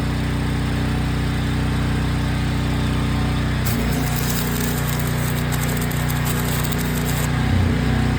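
A gas engine-driven welder's engine runs steadily. About three and a half seconds in, an arc is struck for a tack weld: about three and a half seconds of crackling arc, and the engine note shifts as the arc starts.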